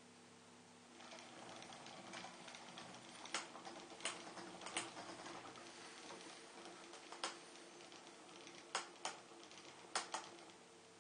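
Steady low hum of a string-wave toy's small motor, with about eight sharp clicks scattered through, several of them in close pairs.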